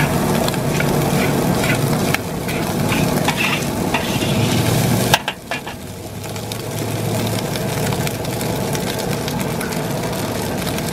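Fried rice stir-fried in a wok: a steady sizzle with the spatula repeatedly scraping and clicking against the wok. About five seconds in there is a sharp knock, after which the sizzle goes on more quietly.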